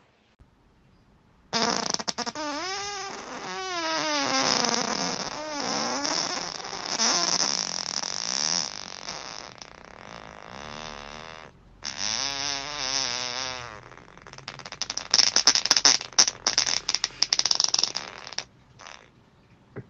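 A long human fart, starting about a second and a half in, with a wavering, gliding pitch. It breaks off briefly a little past halfway, resumes, and ends in a run of spluttering crackles.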